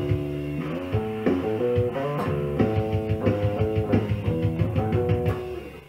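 1974 Rickenbacker 4001 electric bass played through an Ampeg BA110 bass combo amp: a quick run of plucked notes that stops near the end.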